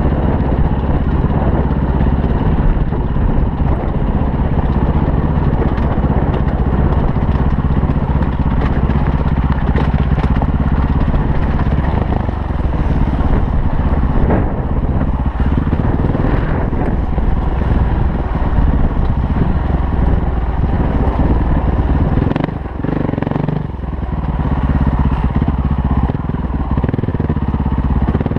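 KTM enduro dirt bike engine running steadily under throttle as the bike rides a rocky trail, heard from the rider's helmet. About three quarters of the way through the engine drops off briefly as the throttle eases, then picks up again.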